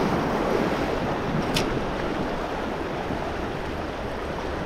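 Sea surf washing over shoreline rocks, with wind on the microphone; a short high hiss about one and a half seconds in.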